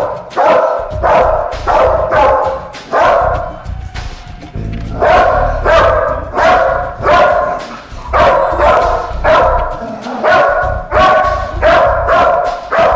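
A dog barking over and over in an even rhythm, about two barks a second, with music underneath.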